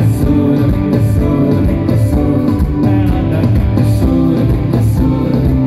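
Loud band music with guitar, a steady driving beat and singing, typical of a live pop concert.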